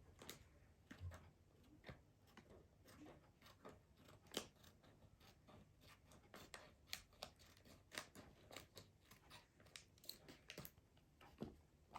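Faint, scattered clicks and crinkles of plastic packaging being handled and opened by hand, with no steady sound beneath.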